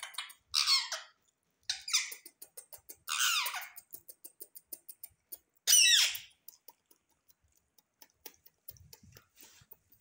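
Rose-ringed parakeet giving four loud, high-pitched squawks, each falling in pitch, with a run of faint quick clicks between them.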